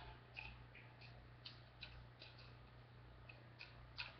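Near silence with a dozen or so faint, irregularly spaced clicks of fingers tapping on a smartphone held in a plastic case, over a faint steady low hum.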